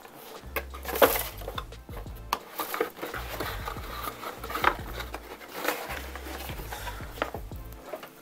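Cardboard packaging being handled and moved, with scattered knocks and rustles, over background music with a steady bass line.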